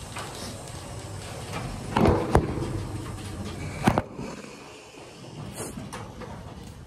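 A few sharp knocks with a short clatter about two seconds in and another knock near four seconds, over a low steady hum that drops away after the last knock.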